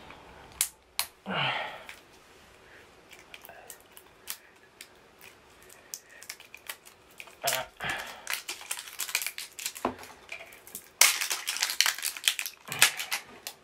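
Plastic packaging crinkling and crackling in the hands as a small charger is unwrapped, in scattered clicks and rustles, with a louder, denser stretch of crackling near the end.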